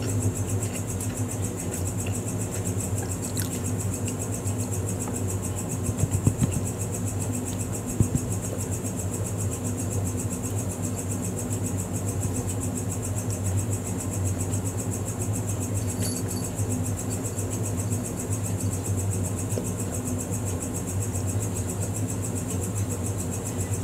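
A steady low motor hum runs throughout, with a few sharp clicks about a quarter and a third of the way through.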